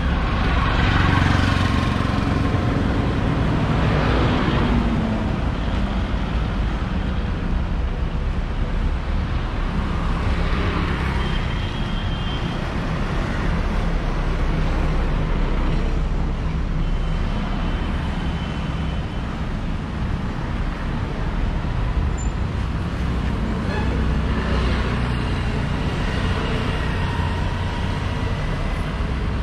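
Road traffic: cars, motor scooters and trucks passing over a steady low rumble, with louder passes a couple of seconds in, around ten seconds in and near the end.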